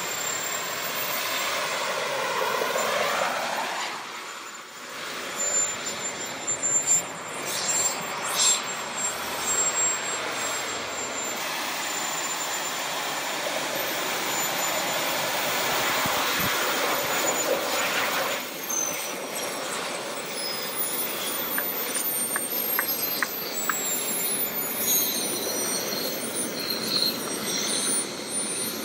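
Small jet turbines of a JB10 personal jetpack running loud and steady as it flies past and hovers down to land. Over the last ten seconds a high whine falls steadily in pitch.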